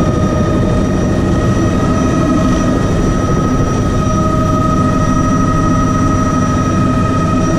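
Bell 206B JetRanger III helicopter heard from inside its cabin: the Allison 250 turboshaft's steady high whine over the low, fast beat of the main rotor, running at flight power.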